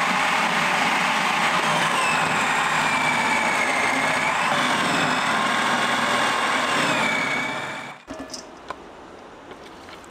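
Kenwood food processor running with a grating disc, shredding carrots fed down its feed tube; its motor whine wavers slightly in pitch. The motor stops about eight seconds in, followed by a few light clicks.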